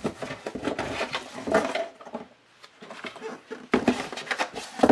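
Cardboard and paper being handled: rustling and light knocks as hands rummage in a cardboard shipping box and lay a letter and cards down on a flat cardboard box.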